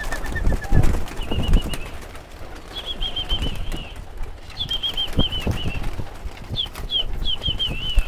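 Domestic pigeons' wings flapping and clapping in uneven bursts, strongest in the first couple of seconds and again about five seconds in. Over it, a bird chirps in short quick runs of high notes.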